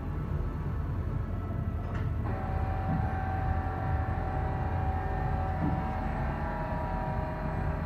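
Goodway GS-280 LMY CNC lathe running under power: a steady low hum, a sharp click about two seconds in, then a steady multi-tone whine from its drives.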